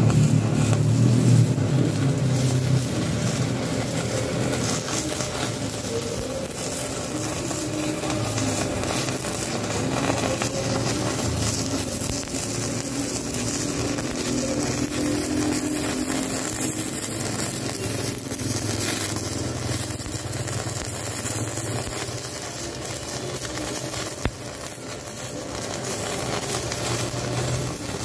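Stick-welding arc from a Protech MK220 welder burning three 2.5 mm electrodes bundled in one holder, a load equal to a single 4.3 mm rod: a steady crackling sizzle that runs on without breaking. The rods burn evenly and smoothly.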